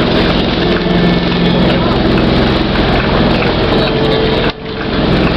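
Outrigger bangka boat's engine running loud and steady, with a short drop in the sound about four and a half seconds in.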